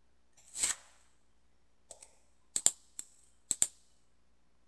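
Clicks of a computer mouse and keyboard: a short soft hiss about half a second in, then a handful of sharp clicks, several coming in quick pairs, as a CAD command is entered and points are picked.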